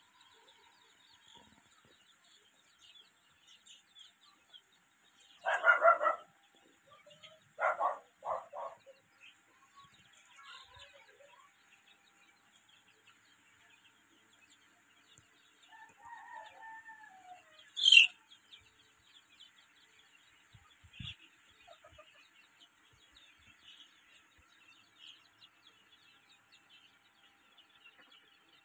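A shed full of 22-day-old Sonali chicks peeping and cheeping, faint most of the time, with louder calls about six and eight seconds in. A sharp high squeak a little past halfway is the loudest sound.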